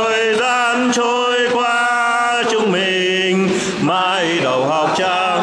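A man's voice chanting in long held notes with a wavering pitch, then moving on in shorter gliding phrases about two and a half seconds in.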